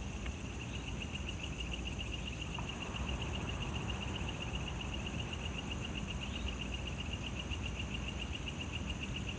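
Crickets and other night insects trilling steadily in a fast, even pulse, with a fainter, higher steady insect buzz above it.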